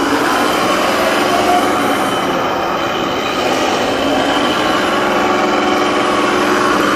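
1/16 scale all-metal Leopard 2A6 RC tank driving and turning on a tiled floor: metal tracks and steel gearboxes running with a steady rattle and whine.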